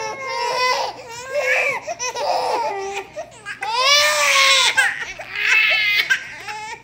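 Twin baby girls crying together, with one wail overlapping the other. The cries rise and fall in pitch, and the longest runs about a second near the middle.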